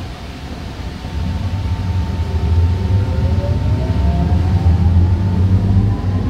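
Alstom Citadis light-rail train pulling away, heard from inside the car: a low rumble builds and the traction motors' whine climbs in pitch as it accelerates.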